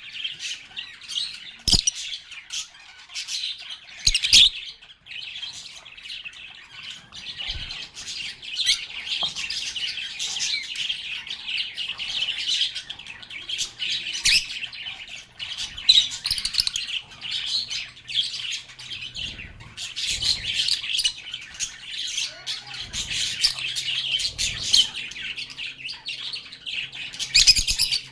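A flock of pet lovebirds chattering continuously with shrill chirps and squawks. A few sharp taps or knocks cut through, the loudest about four seconds in and near the end.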